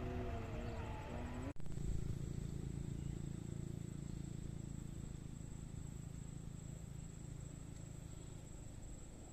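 A wavering engine-like tone that cuts off abruptly about a second and a half in, followed by a steady low engine rumble that eases off near the end. A thin steady high-pitched whine runs underneath.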